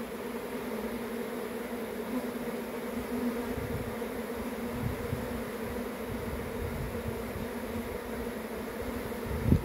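A swarm of honeybees buzzing together in a steady, even hum.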